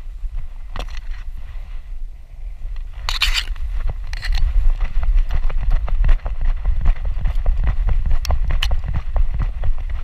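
Handling noise from a GoPro Hero4 Black in its case on a running dog's harness: a low rumble of wind and jostling under a rapid, uneven run of knocks and rattles, busier in the second half. A brief hissing rustle about three seconds in, as grass brushes the camera.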